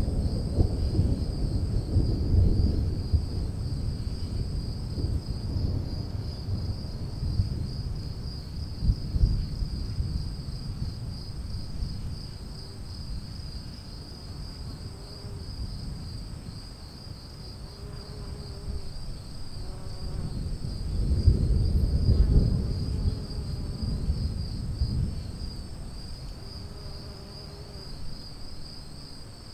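Distant thunder rumbling, fading away over the first several seconds and rolling in again about two-thirds of the way through, over the steady pulsing chirr of crickets.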